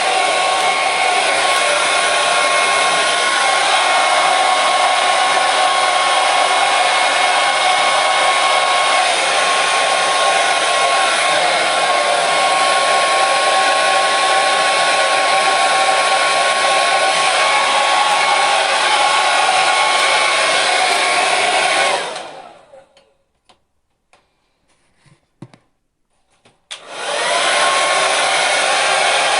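Hair dryer running at a steady high level, a constant rush of air with a thin whine. About three quarters of the way through it is switched off and dies away, leaving a few seconds of near silence with a few faint clicks. It then starts again, its whine rising back up to speed.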